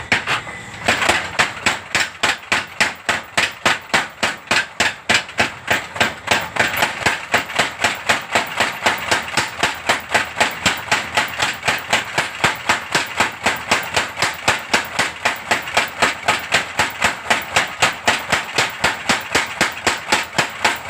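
Power hammer running, striking steadily at about three to four blows a second in an even, unbroken rhythm; the blows settle into their pace about a second in.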